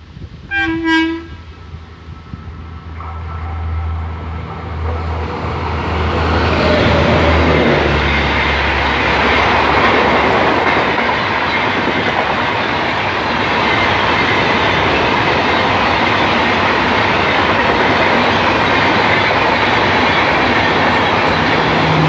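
Electric express train horn sounds briefly about half a second in as the WAP-7 hauled train approaches. Its running noise then builds with a low hum, and from about six seconds in the coaches pass at speed in a loud, steady rush of wheels on rails.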